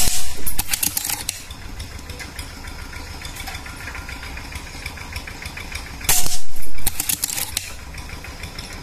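Suppressed PCP air rifle (Predator Immortal) fired twice at metal silhouette targets, once at the start and again about six seconds in. Each shot is a short, loud crack together with the pellet striking the steel target. A steady low hum runs underneath.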